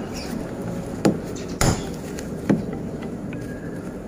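Plastic car door-trim clips snapping loose as the interior door panel is pulled off by hand: three sharp snaps over about a second and a half.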